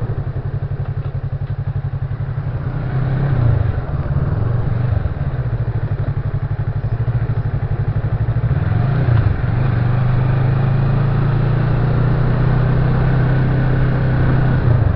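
A vehicle engine running steadily while travelling, with road and wind noise over it; its pitch shifts briefly a few seconds in and again about halfway through.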